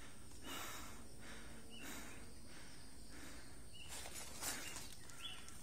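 Faint forest ambience: a steady high insect drone, a few short bird chirps, and soft rustles of dry leaf litter, the loudest near the end.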